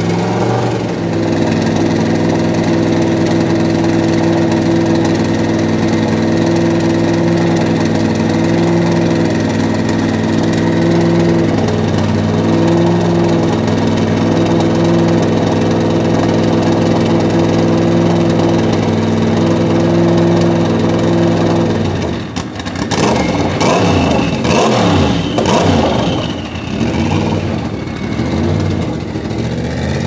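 Sauber-Mercedes C11's M119 5.0-litre twin-turbo V8 idling steadily with a slight waver. About two-thirds of the way through it is revved in a few quick throttle blips, then drops back to idle.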